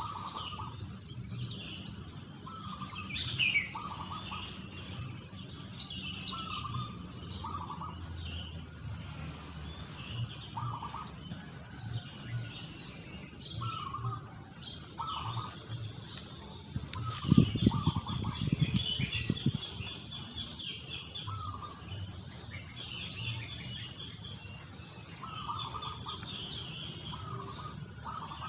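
Several wild birds calling together: a short mid-pitched call repeated every second or two, over higher chirps and a fast trill. About seventeen seconds in, a burst of low thumps lasting two seconds or so is the loudest sound.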